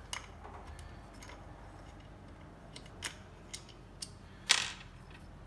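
Scattered light clicks and taps of plastic and metal parts of a disassembled Jericho-type burr coffee grinder being handled and fitted together, with one louder short scrape about four and a half seconds in.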